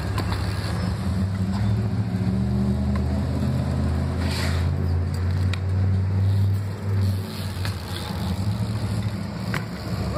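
A motor vehicle's engine running steadily, a low hum, with a few faint clicks over it.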